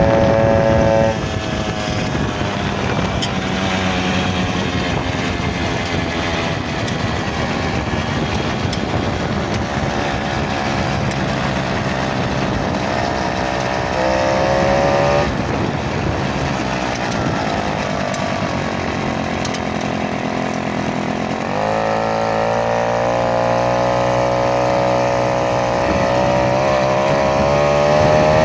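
Minarelli V1 engine running with an odd noise, the 'funny noise' its owner is recording. The revs sag slowly, blip up briefly about halfway through, then climb sharply about two-thirds of the way in.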